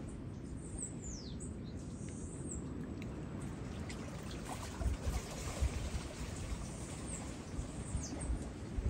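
Wind rumbling on the microphone, turning gustier past the middle, with a bird giving a few high, falling whistled chirps about a second in and again near the end.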